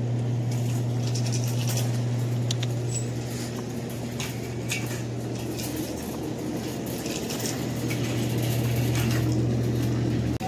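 A steady low hum with many light clicks and rattles scattered over it. The hum cuts off abruptly near the end.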